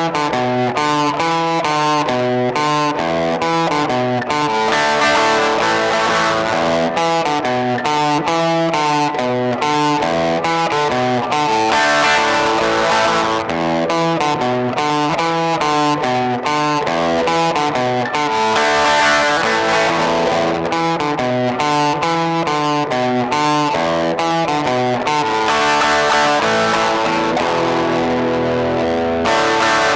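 Electric guitar played through distortion, a continuous riff of quickly changing notes without pause.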